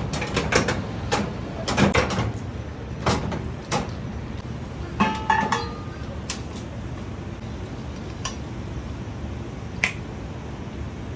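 Sharp metal clanks and knocks of cooking tools, several in quick succession, then a brief ringing clink about five seconds in and one more click near ten seconds, over a steady low kitchen hum.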